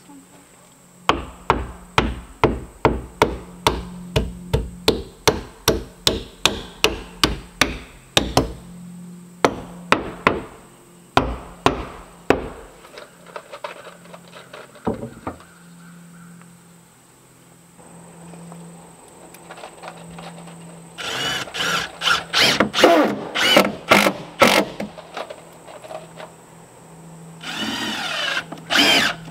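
A hammer driving nails into wooden batten siding, about three blows a second for some seven seconds, then a few more blows. Later a cordless drill drives screws into the wood in two short runs, the second near the end.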